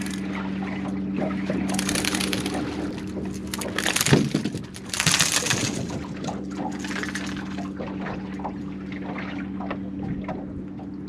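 A hooked speckled trout splashing at the surface as it is reeled up to the boat and swung aboard, in two bouts of splashing with the loudest splash about four seconds in. A steady low hum runs underneath.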